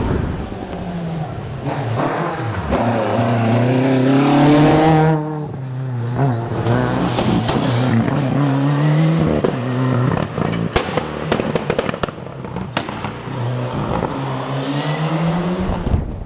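Rally car engine at full throttle, its pitch climbing, dropping sharply as it shifts up about five seconds in, then climbing again through the gears. A run of sharp cracks comes about two thirds of the way through.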